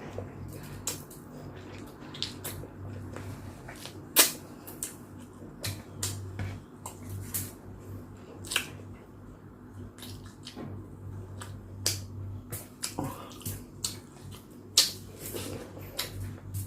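Close-up mukbang eating sounds: slurping chicken soup broth and chewing, with scattered sharp wet clicks and smacks.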